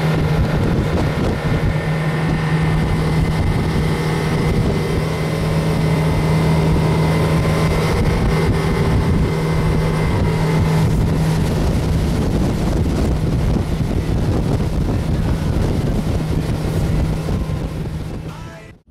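A boat's engine running at a steady cruising speed, with wind buffeting the microphone and water rushing past the hull; it fades out near the end.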